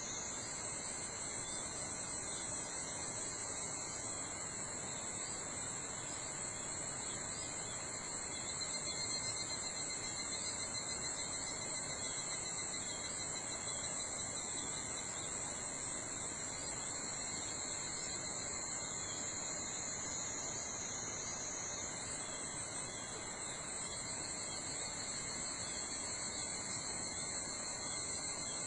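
Chorus of summer insects trilling steadily at several high pitches at once, one voice shifting slightly higher about three-quarters of the way through, over a soft forest background hiss.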